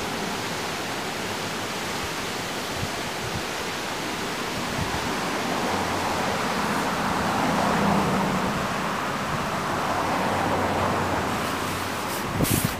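Steady rush of the flood-swollen Winooski River churning through rapids below the bridge. Near the end there are a few brief bumps of wind on the microphone.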